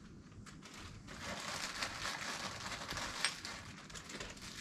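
Plastic wrapping crinkling and rustling faintly as a small shaker is unwrapped by hand, with a sharp click a little after three seconds in.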